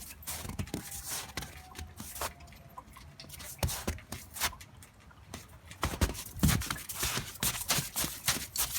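Irregular crunching steps in snow, sparse at first and then quicker and louder from about six seconds in.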